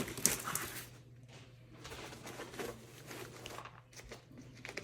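Plastic packaging crinkling and rustling in irregular bursts as items are handled and pulled out of a backpack pocket.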